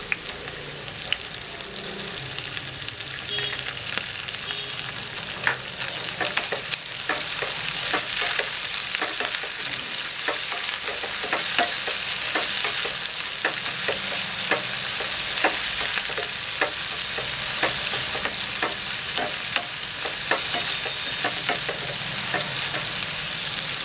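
Dried prawns, chopped onion and green chillies frying in hot oil in a nonstick frying pan: a steady sizzle. From about five seconds in, a spatula stirs them with frequent short scrapes and taps against the pan.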